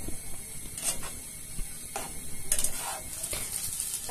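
Spatula scraping against a kadai in strokes about a second apart as minced, pre-boiled chicken is stirred while frying in oil, over a faint steady sizzle.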